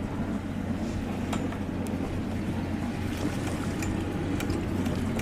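A sailboat's inboard diesel engine running steadily at low revs, a constant low drone, with a few faint clicks over it.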